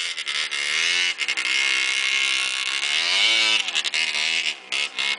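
Single-cylinder two-stroke engine of a Yamaha DT 180 trail bike revving under load on a hill climb, its pitch rising and falling with the throttle, with one long rise about three seconds in.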